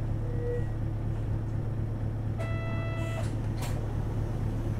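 Isuzu Erga city bus heard from inside the cabin, its diesel engine idling steadily. There is a short electronic beep right at the start, an electronic buzzer tone lasting almost a second about halfway through, and a brief sharp noise just after it.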